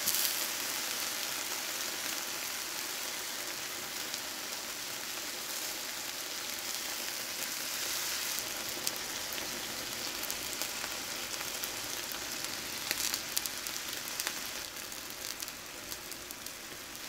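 Eggplant planks sizzling in a stainless steel frying pan: a steady frying hiss with scattered crackles and pops in the second half.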